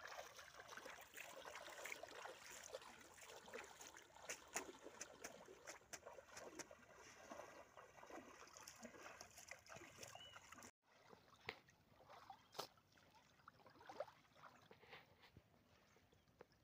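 Faint splashing and sloshing of water as a person wades through a shallow river, over a low steady hiss, with many small ticks and a brief dropout about two-thirds of the way in.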